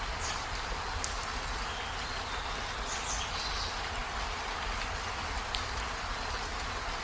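Steady rain falling as an even hiss, with a few short, high chirps scattered through it.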